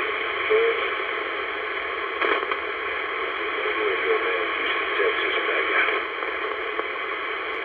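Static hiss from a 1970s Royce CB radio's speaker, steady and band-limited, with a weak distant operator's voice faintly audible beneath it.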